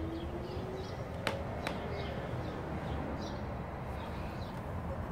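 Outdoor background: a steady low rumble with small birds chirping faintly now and then, a faint hum that fades out about a second in, and two sharp clicks close together about a second and a half in.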